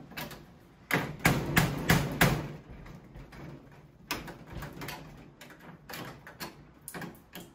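A large screwdriver being wrenched and knocked about in the lock hole of a steel vending machine door, trying to break out a stuck piece of the lock cylinder. It gives sharp metal clanks and rattles: a quick run of about five loud ones about a second in, then lighter, scattered knocks.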